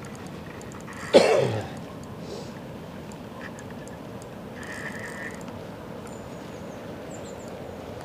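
Steady rush of fast-flowing river water. About a second in, one loud, short throaty sound drops in pitch. A faint, short whistled note comes midway and faint bird chirps come near the end.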